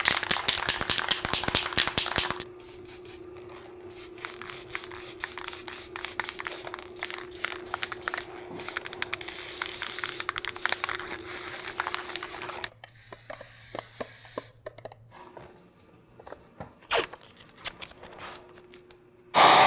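Masking tape being pulled from the roll, torn into small pieces and pressed down onto a plastic part: a run of short rips, crinkles and clicks, loudest in the first couple of seconds, with a brief steady hiss about two thirds of the way through.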